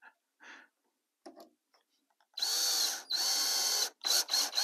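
Cordless drill driving a drywall screw through half-inch plywood into a wooden riser. A few faint clicks come first; about halfway in the drill runs in two steady pushes with a high motor whine, then gives a few quick short bursts as the screw seats.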